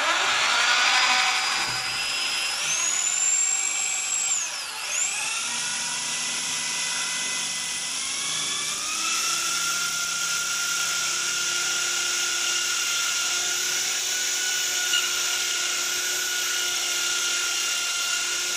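Bosch power drill boring through ceramic wall tile with a ceramic drill bit. The motor whine climbs about two seconds in, dips briefly and recovers around the fifth second, then holds steady and high.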